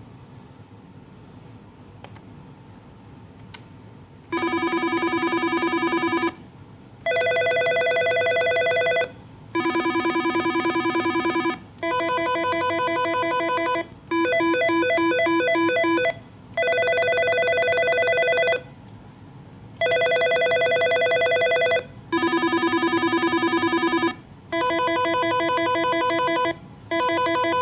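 Nortel Norstar M7310 office phone's electronic ringer playing its ring tones, starting about four seconds in. It rings in warbling bursts of about two seconds with short gaps, switching between several distinct ring patterns, some lower and some higher pitched.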